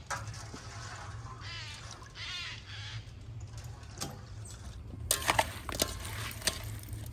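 A drawn-out, wavering animal call, followed a few seconds later by several sharp clicks and knocks.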